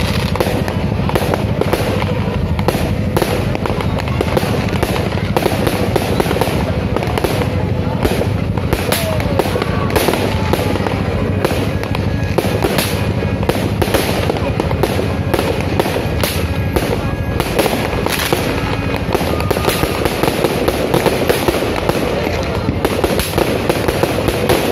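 Fireworks going off without a break: many aerial shells bursting and crackling in quick succession, several pops a second.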